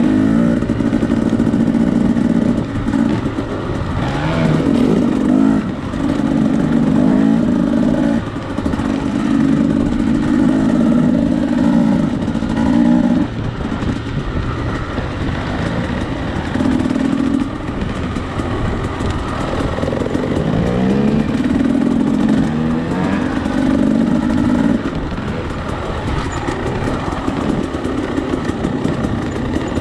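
Husqvarna TE two-stroke enduro dirt bike engine ridden close-up, its revs rising and falling with the throttle, easing off for a while about halfway through and then climbing again.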